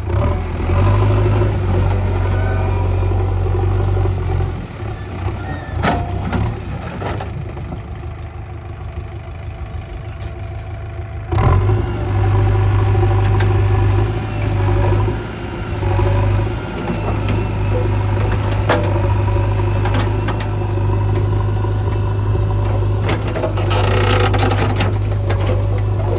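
JCB 3DX backhoe loader's diesel engine working under load, easing to a lower, quieter note for several seconds partway through, then picking back up suddenly and holding high again. A few sharp knocks sound over the engine.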